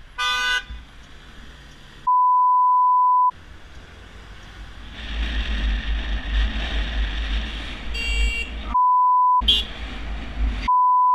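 A censor bleep, a steady single-pitch tone with the other sound muted, heard three times: once for about a second a couple of seconds in, and twice briefly near the end. Between the bleeps is wind and road noise with the low engine rumble of a scooter riding along.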